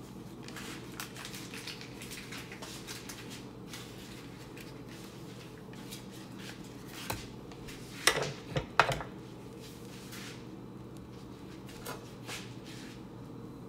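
A pat of butter melting in hot olive oil in a frying pan, giving small scattered crackling pops. About eight seconds in come a few louder clanks of the metal pan being moved on the glass stovetop.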